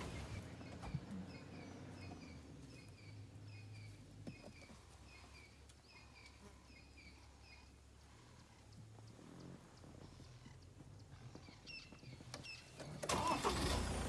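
A vehicle engine idling low and steady, with a small bird repeating a short, high chirp about twice a second through the first half. About a second before the end, a louder rush of noise comes in.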